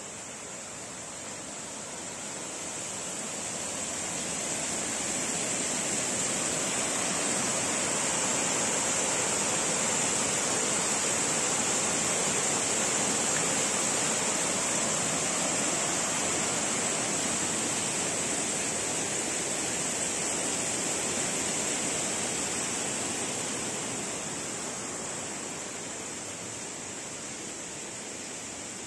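Rushing water of a small stream tumbling through a channel, growing louder over the first few seconds, steady through the middle and fading near the end, with a steady high hiss on top.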